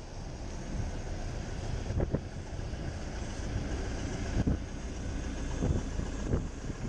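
A red London bus passing close alongside, its engine and tyres making a steady low roar, mixed with wind on the microphone. A few short low thumps come about two seconds in and again in the second half.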